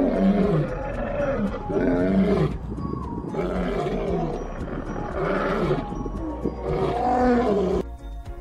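Male lions roaring: a run of deep roars in two bouts, broken by a short pause about three seconds in.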